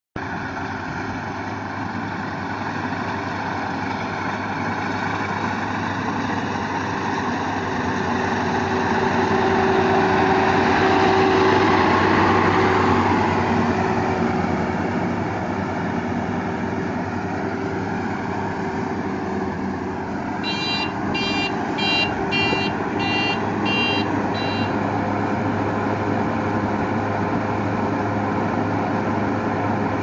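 Tracked rice combine harvester's engine and threshing machinery running steadily under load, growing louder for a few seconds about a third of the way in as the machine comes close. About two-thirds of the way through, a high beeping sounds about twice a second for some four seconds over the engine.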